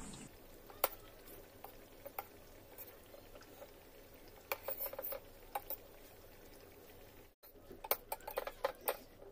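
Steel spoon clinking and scraping against a stainless steel pot while turning gujiyas in sugar syrup: scattered light clinks, with a cluster about halfway through and another near the end.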